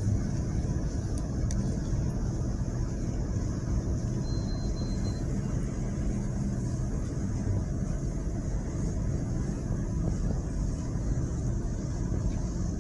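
Steady low rumble of a suburban electric train running, heard from inside the passenger carriage.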